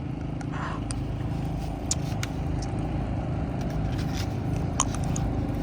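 A steady low motor hum, with a few light clicks.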